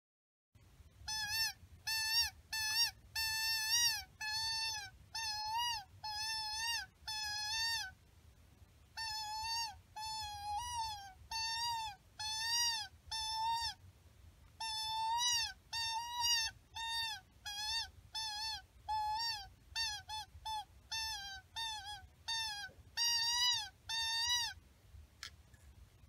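Coyote call imitating pup whimpers: a long series of short, high whining yelps, each rising and falling, about two a second in three runs, sounded to coax a coyote back in.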